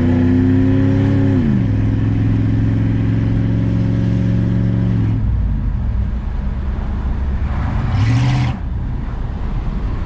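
1993 Chevrolet Caprice wagon's 305 TBI small-block V8 pulling under throttle on a drive. Its pitch drops as it upshifts about a second and a half in, then it holds steady and falls away as the throttle is lifted around five seconds in. A short rising rev with a rushing hiss comes near the end.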